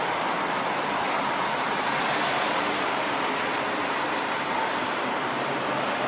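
Steady outdoor background noise, an even hiss with no distinct events, with faint high-pitched thin tones that waver slightly in pitch partway through. No bird call stands out.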